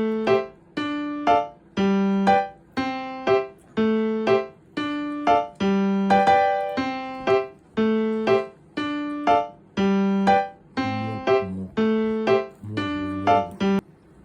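A simple keyboard melody in a piano sound: single struck notes, about two a second, each ringing out and fading before the next.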